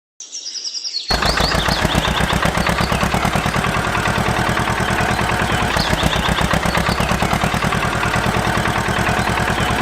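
Birds chirp, then about a second in an engine starts running abruptly with a fast, even knocking beat that stays loud and steady, with chirps still heard over it.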